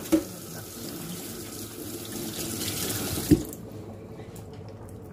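Water running steadily from a kitchen tap, cut off about three and a half seconds in just after a single knock.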